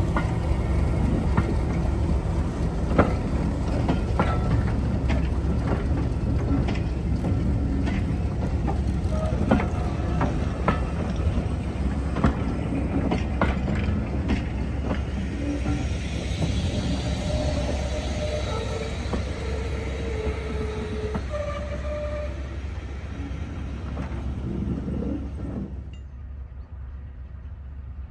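Diesel-hauled heritage train running, with a steady low drone and irregular clicks of wheels over the track. Brief higher squealing tones come through about two-thirds of the way in. Near the end the sound suddenly turns duller and quieter.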